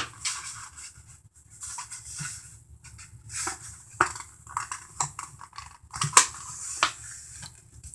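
Stiff cardstock paper rustling and crackling as it is unfolded, refolded and creased by hand, with a few sharper crinkles.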